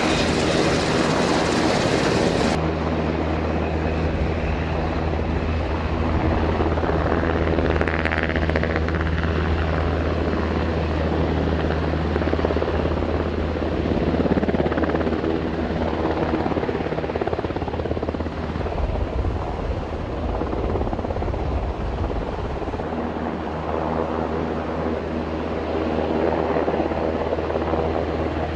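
Parrot AR.Drone quadcopter's four electric motors and propellers buzzing steadily in flight.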